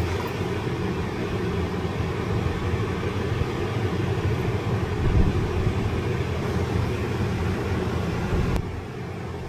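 Steady low rumbling noise with no clear single source, dropping a little about eight and a half seconds in.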